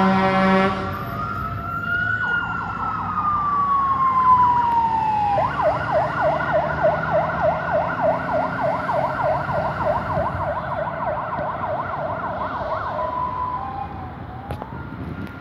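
MAN/Stolarczyk fire engine on an emergency run: a horn blast ending just under a second in, then its siren wailing in one slow rise and fall before switching to a fast yelp of about four sweeps a second. The siren stops about two seconds before the end and fades as the truck drives away.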